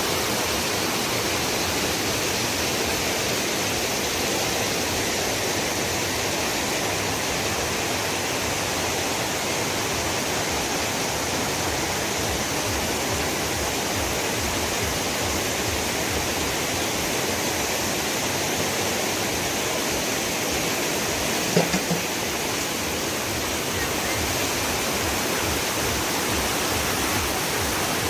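Shallow river rapids: white water rushing steadily over rocks. About three quarters of the way through there is one brief knock.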